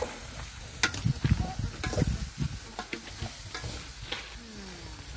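Chopped kale frying in a metal sufuria, a steady sizzle under irregular scrapes and knocks as it is stirred.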